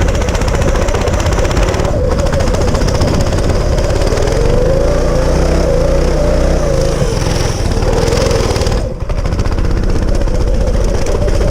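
Go-kart engine running hard, its revs rising and falling with the throttle and easing off briefly about two seconds in and again around nine seconds.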